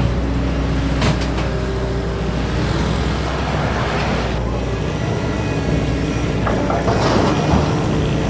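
Doosan DX225LCA excavator's diesel engine running steadily under working load, with a sharp knock about a second in and louder clatter near the end.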